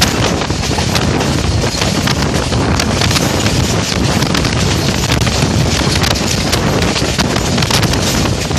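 Loud wind buffeting the microphone at an open window of a moving train, over the steady rumble of the train running on the rails.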